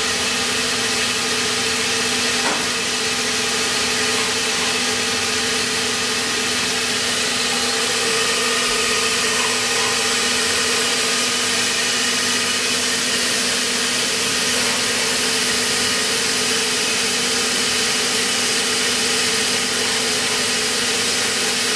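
Rambo 5V CNC milling machine running steadily: an even hum with a constant hiss, and no cutting heard. A single short click sounds about two and a half seconds in.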